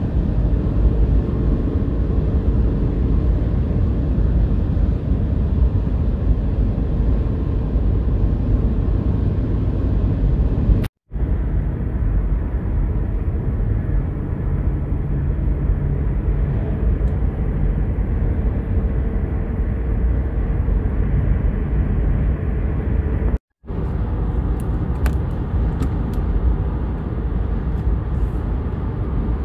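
Steady road noise inside a moving car's cabin, a low rumble of tyres and engine, cutting out to silence for a moment twice.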